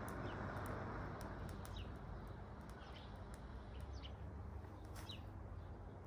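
A person blowing through a metal pipe onto kindling to fan a newly lit fire, a breathy rush that is strongest in the first second or so and then eases. Small birds chirp now and then.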